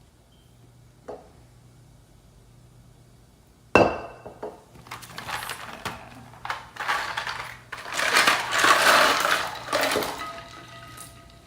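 Kitchen clatter of dishes and utensils: a sharp knock a little under four seconds in, then several seconds of irregular clinking and rattling, with a faint ringing tone near the end. A faint low hum sits underneath.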